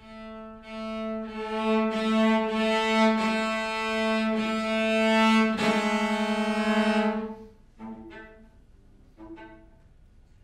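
Cello bowing one long, low held note in a string quartet piece, pulsing near its end and cutting off about seven and a half seconds in. Two short, softer, higher notes follow.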